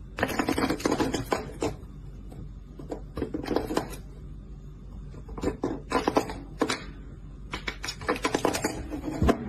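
Plastic desk cable-grommet cap clattering against its ring as it is pushed up from below and falls back, in about four bursts of rapid clicks.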